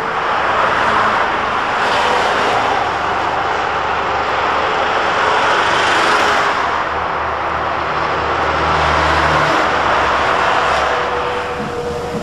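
Heavy traffic on a multi-lane urban road: a steady rush of tyres and engines that swells and eases as vehicles pass, with a deeper engine hum from a heavy vehicle about eight seconds in.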